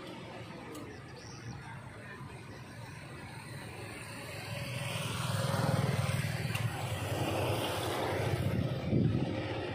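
A motor vehicle passing by on the road, its tyre and engine noise growing louder about halfway through and easing off near the end, over steady outdoor traffic hum.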